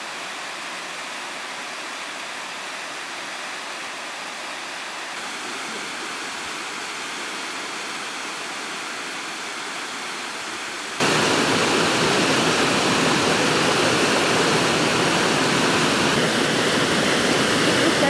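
Water rushing down the partly frozen Girlevik Waterfall, a steady, even rush. About eleven seconds in it turns suddenly much louder and fuller as the view moves close to the falling water.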